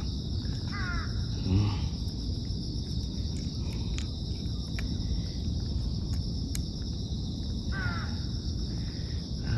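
Steady high-pitched insect chorus over a constant low rumble, with two short animal calls, one about a second in and one near the end.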